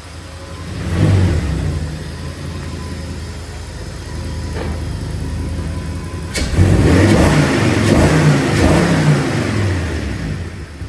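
Audi S6 engine pulling the car along, swelling briefly about a second in, then accelerating harder for several seconds from past the halfway point with its pitch rising and falling. A single sharp click comes just before the harder acceleration.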